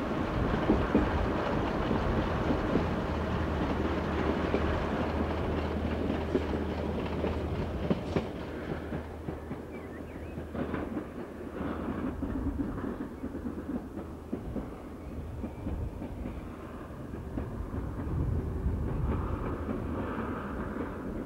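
Diesel multiple unit on the move, heard from on board: a steady engine hum under wheel and rail noise with clicks over the rail joints. About eight seconds in, this gives way to the quieter sound of the same kind of train running past at a distance.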